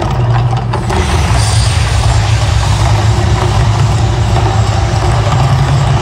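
The Mirage volcano show erupting: a loud, deep, steady rumble with a rushing hiss from the water plumes and gas fire bursts, which grows fuller about a second in.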